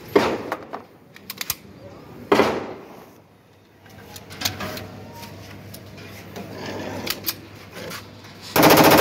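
Pistol shots fired into a brick firing pit: a sharp crack with echo just after the start and another about two seconds later, small metallic clicks between them, and a longer, louder blast near the end.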